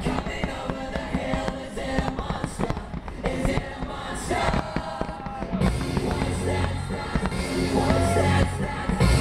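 Pop music with singing plays over a fireworks display, with firework bangs and crackles among it. A heavy bass beat comes in about halfway through.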